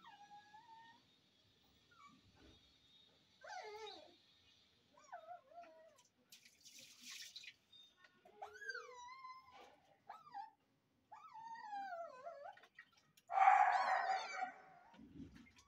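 Young puppy whimpering and whining: a string of short, high, wavering cries that slide up and down in pitch, with one louder, rougher cry near the end.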